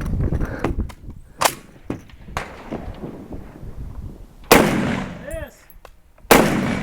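Single gunshots fired a second or more apart, the two loudest in the second half; a ringing tone follows one of them.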